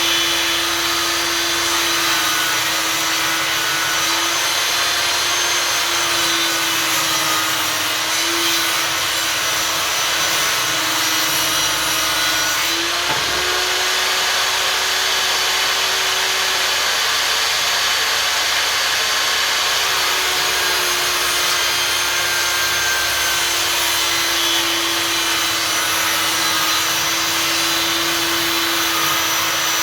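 Einhell table saw motor running steadily while its blade cuts wood boards. The motor's tone jumps up in pitch about halfway through and settles back down a few seconds later.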